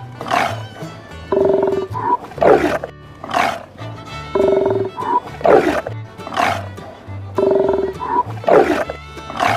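Sea lion barking, the same short run of calls repeating about every three seconds, over background music.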